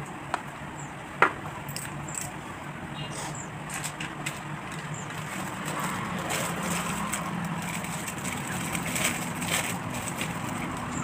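Small plastic spice bottles and containers being handled, with a few light plastic clicks in the first few seconds, then a plastic spice packet crinkling from about halfway on. A steady low hum runs underneath.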